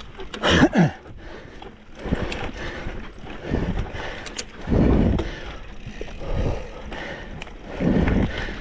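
Mountain bike being ridden over a rough, rocky trail: tyre noise with knocks and rattles from the bike, rising and falling in surges every second or so.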